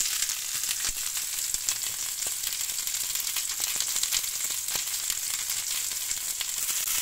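Hot oil sizzling steadily in a frying pan as sliced king oyster mushrooms are laid into it, with a fine crackle of small pops throughout.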